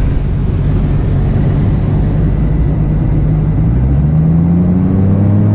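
A crane's power unit runs with a steady low hum, then revs up about three and a half seconds in, rising in pitch and holding higher.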